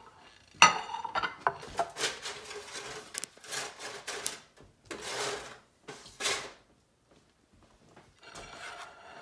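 Metal spatula scraping under baked chicken breasts on a flat metal baking pan and clattering against the pan and plates, with a sharp ringing metallic clank about half a second in and a run of rough scrapes after it.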